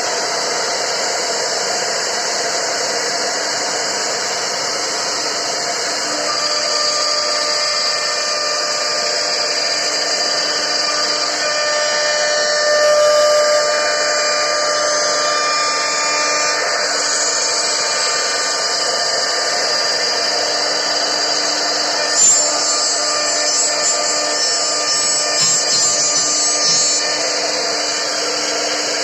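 CNC wood router spindle running and cutting into a wooden board, a steady loud machine noise with a high whine. There is a sharp click about three-quarters of the way through.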